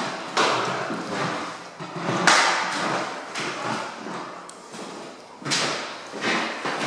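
Footsteps on a bare hardwood floor in an empty room: irregular knocks about every half second to a second, each with a short echoing tail, the sharpest a little past two seconds in and again about five and a half seconds in.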